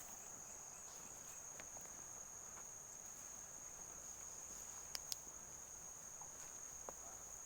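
Crickets chirring in a steady, high-pitched chorus, with two faint sharp clicks about five seconds in.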